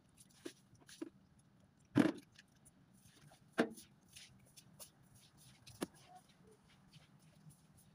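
Broom scrubbing a wet tiled floor: several separate scrapes and knocks, the loudest about two seconds in, with fainter ticking between.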